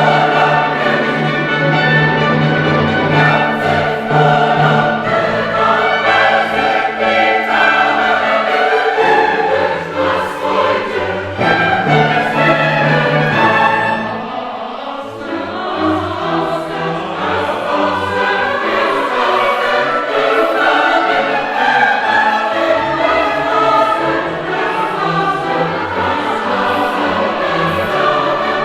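A choir singing in a classical or church style with instrumental accompaniment, held low notes underneath for the first half; the music eases briefly about halfway through, then continues.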